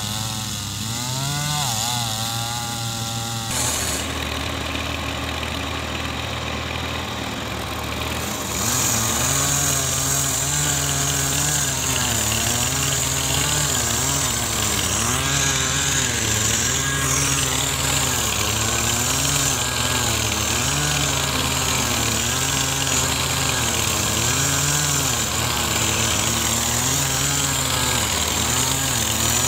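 Chainsaw running and cutting into a tree trunk, its engine note swelling and dipping in a steady rhythm about once a second. It grows louder about eight seconds in.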